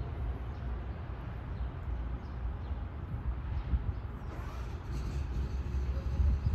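NJ Transit Arrow III electric multiple-unit train approaching at low speed: a steady low rumble of wheels on rail and running gear, growing a little louder with a spreading hiss about four seconds in.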